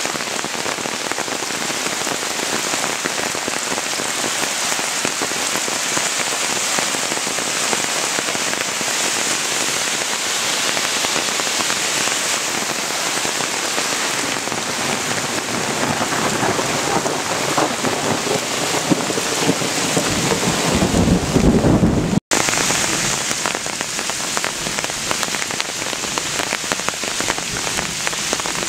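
Heavy downpour hissing steadily on water and ground. From a little past halfway, a louder, deeper rush builds, and the sound drops out for an instant about three-quarters of the way through.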